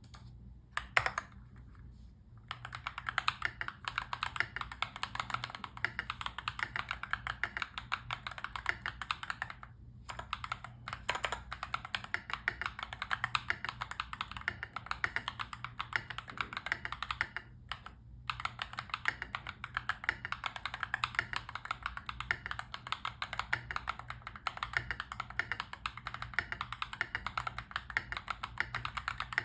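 Continuous fast typing on a mechanical keyboard with NovelKeys PBT Cherry-profile keycaps, a quick run of key clacks with short pauses about two, ten and eighteen seconds in. A faint steady low hum sits underneath.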